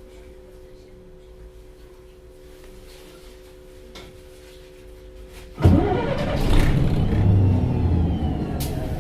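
Low steady hum from the idle bus, then about halfway through the MAN NG273T4 articulated bus's LPG engine starts abruptly and runs loudly.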